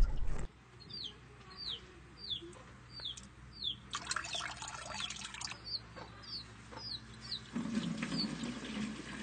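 Fermented liquid manure poured from a clay pot through a strainer, splashing for about a second and a half near the middle. Throughout, a bird repeats a short falling chirp about twice a second.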